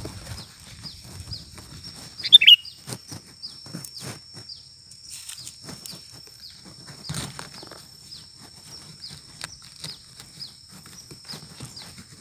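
A decoy sooty-headed bulbul gives one short loud call of quick falling notes about two seconds in, calling to lure wild bulbuls. Behind it, a steady high-pitched hum with faint scattered clicks.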